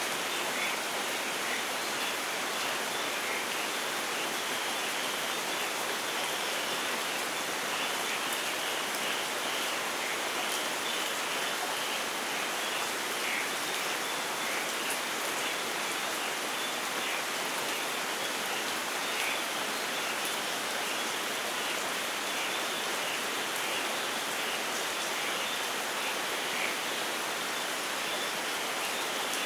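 Steady rainfall in a rainforest: an even hiss of rain with no let-up.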